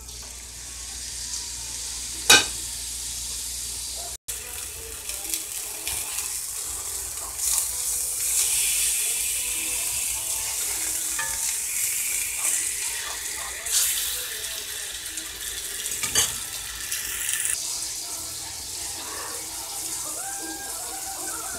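Chicken breasts frying in oil in a cast-iron skillet: a steady sizzle, with a few sharp knocks against the pan.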